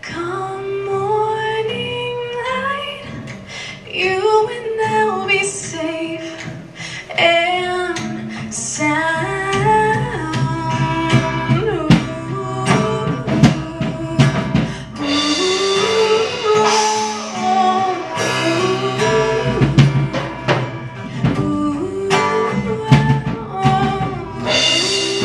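A woman singing a slow melody, accompanied by acoustic guitar.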